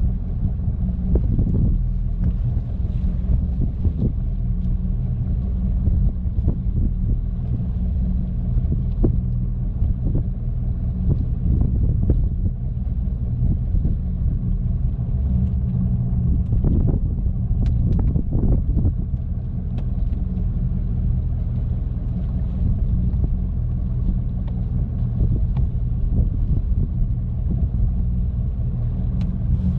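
A wooden fishing boat's engine running steadily: a low rumble with an even hum, joined by a few brief knocks.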